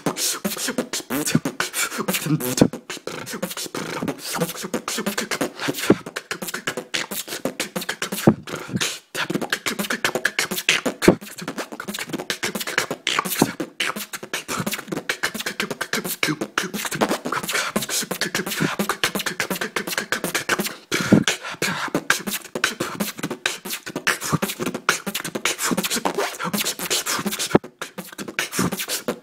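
Beatboxing: a continuous, fast stream of mouth-made drum sounds (kick, snare and hi-hat clicks), broken by a few short pauses, performed close to a phone's microphone.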